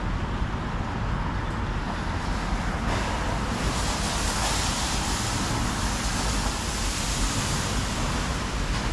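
Automatic tunnel car wash running: a steady rushing noise of water spray and machinery, growing louder and hissier about three seconds in.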